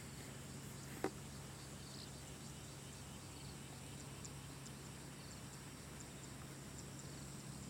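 Faint field ambience of insects calling with a steady high-pitched buzz over a steady low hum, broken by one sharp click about a second in.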